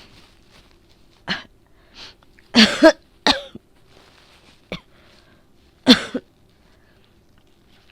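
A woman with a cold coughing in a string of short bursts, the loudest a double cough about two and a half seconds in and another near six seconds. This is a chesty cold cough that brings up a lot of phlegm.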